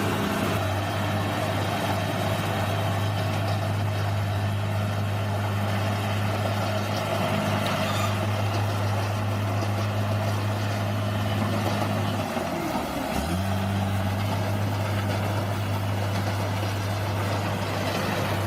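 Bulldozer's diesel engine running at a steady pitch. About twelve seconds in it dips briefly, then picks back up.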